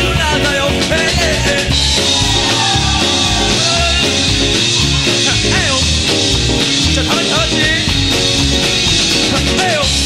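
Live rock band playing: drums, electric guitars, bass, acoustic guitar and keyboard over a steady beat, with a melody line sliding up and down in pitch.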